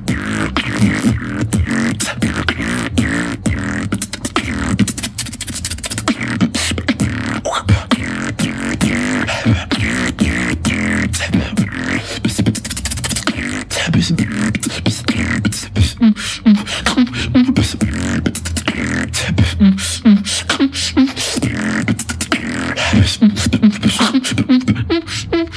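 Beatboxing into a handheld microphone: a fast, dense run of kick and snare clicks over a deep buzzing lip-roll bass, with short bass notes stepping up and down in pitch in the second half.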